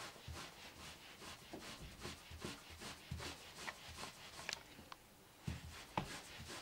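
Hands rolling wool strands back and forth on a coarse towel to felt them into a dread: a quick run of soft rubbing strokes, with a couple of sharper knocks about five to six seconds in.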